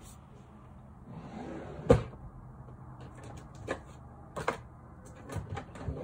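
A sharp knock on a tabletop about two seconds in, then a few lighter clicks: small beading items and strands being handled and set down on the table.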